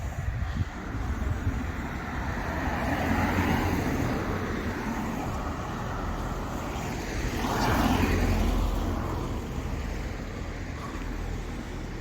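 Street traffic with two cars passing by, the first about three seconds in and a louder one about eight seconds in, each rising and fading away.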